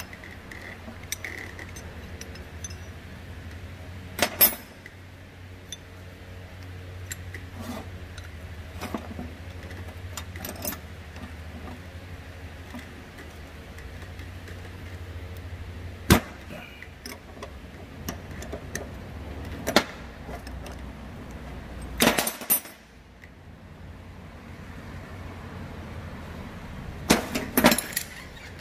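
Metal parts and tools clinking and knocking now and then as a rice transplanter's rotor case is worked on, over a steady low hum that drops out briefly about 22 seconds in.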